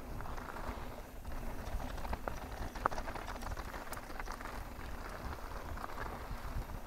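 Mountain bike riding down a dirt and rock trail: tyres crunching over the ground with scattered sharp clicks and knocks from the bike, over a low rumble of wind on the microphone.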